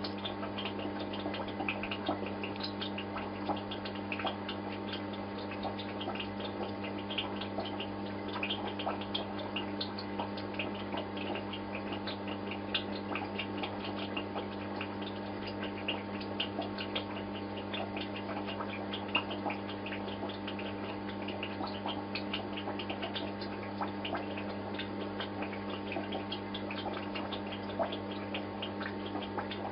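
Aquarium pump humming steadily at a low, even pitch, with water dripping and many small scattered ticks and clicks.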